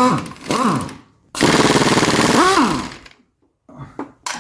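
Power impact wrench hammering in two bursts, each winding down with a falling whine as the trigger is let go, then a few light clicks of tools near the end.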